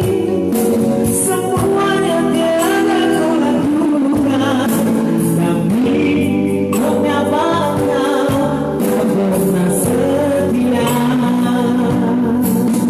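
A man singing an old Indonesian song over instrumental backing music.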